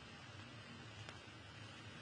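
Ground pork frying in a wok, a faint steady sizzle, with one light click of the spatula against the pan about a second in.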